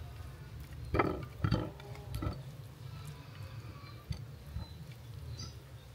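Plates knocking and clicking lightly as fried soya chunks are moved onto them by hand, with two louder knocks about a second in and another soon after, and smaller ticks later, over a low steady hum.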